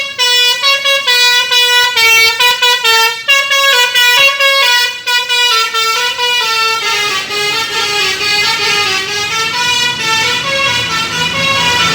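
Indonesian bus's 'telolet' multi-tone musical horn playing a rapid tune of short notes that step up and down, repeated without pause.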